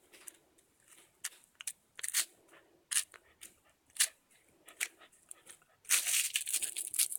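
A pet chewing and tearing at a cat toy: scattered sharp crunches and clicks, then from about six seconds a continuous crinkling rattle.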